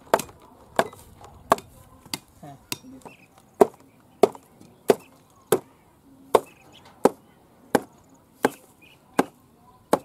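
Steady series of sharp knocks, about one every 0.7 s: a short length of banana stem swung as a mallet, pounding thin wooden pegs into banana stems to join them.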